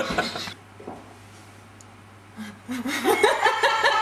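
After a short lull, laughter breaks out about two and a half seconds in: a quick run of rising pulses that keeps going.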